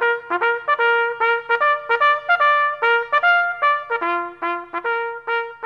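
Short brass fanfare jingle: a quick run of short trumpet notes, ending on a long held note near the end.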